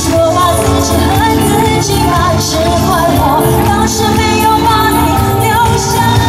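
Female singer singing a pop song into a microphone over amplified band music with drums and bass.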